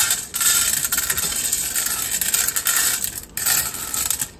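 Dry cat kibble poured onto a stainless steel plate, the pellets rattling on the metal in a steady stream with two brief breaks. It stops just before the end.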